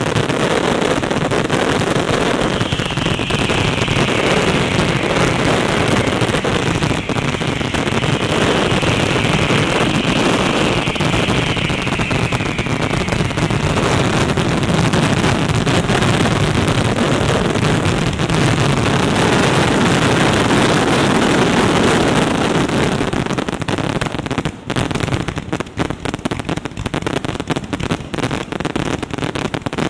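Fireworks finale barrage: shells launching and bursting so fast that they run together into one dense, crackling rumble, with high whistling sliding down in pitch in the first half. Near the end it thins into separate heavy bangs with short gaps.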